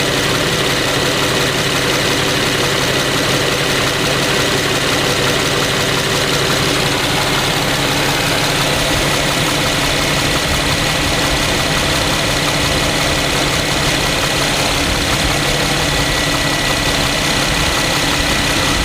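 An engine idling steadily with a knock, played as an example of engine knocking: the sign of abnormal, uncontrolled combustion in the cylinders.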